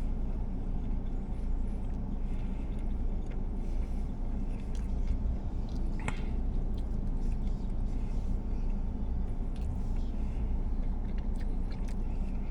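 Steady low rumble of a car engine idling, heard from inside the cabin, with a sharp click about six seconds in.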